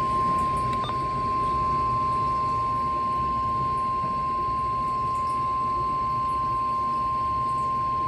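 NOAA Weather Radio 1050 Hz warning alarm tone: a single steady, loud tone held for several seconds. It is the attention signal that a warning message is about to be read.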